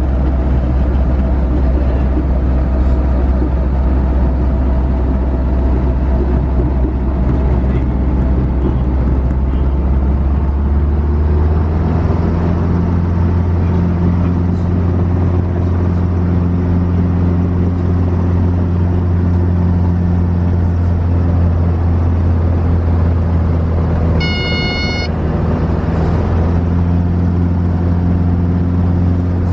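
Robinson helicopter in flight: a loud, steady drone of rotor and engine, its low hum stepping up in pitch about a third of the way through. A short high electronic beep sounds about two-thirds through.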